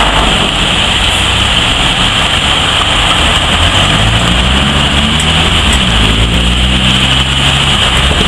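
Diesel engine of a flatbed semi-truck driving past, its note rising as it accelerates about halfway through, over a steady hiss of rain and tyres on the wet road.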